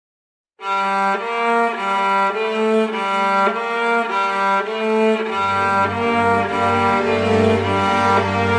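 Music for bowed strings led by a cello, starting suddenly about half a second in with a line of held notes; a low bass note joins about five seconds in.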